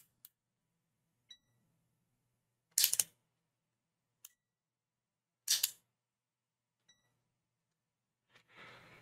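Off-camera handling noise at a workbench: a few faint clicks and two short rustling bursts, about three and five and a half seconds in, with a weaker one near the end.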